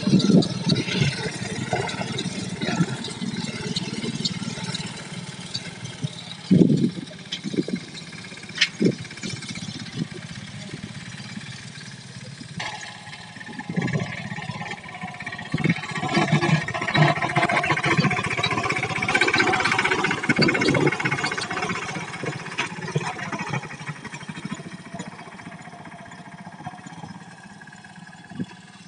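Mahindra mini tractor's diesel engine running steadily as it pulls a tine cultivator through the soil, with irregular low thumps mixed in. The sound changes abruptly about twelve seconds in.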